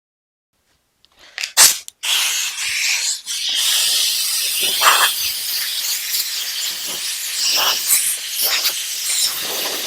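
A power tool cutting shallow relief grooves, about one ply deep, into a sheet of 3/4-inch plywood. It starts with a couple of short bursts about a second in, then from about two seconds gives a loud, steady, mostly high-pitched cutting noise that stops abruptly at the end.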